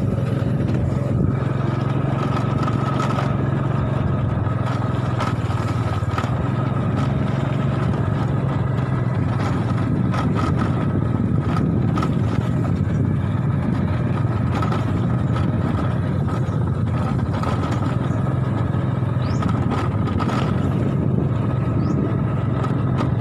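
Small motorcycle engine running steadily while riding along, with occasional knocks and rattles.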